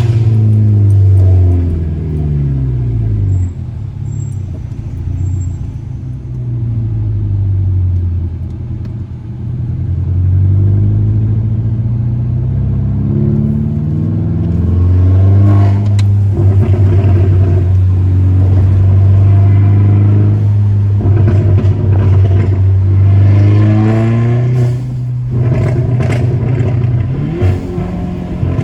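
Mk6 Volkswagen GTI's tuned turbocharged 2.0-litre four-cylinder engine under way, revs climbing and falling through gear changes with a steady stretch in the middle. Several bursts of exhaust pops and crackles from the tune's pops-and-crackles map, around the middle and again in the last few seconds.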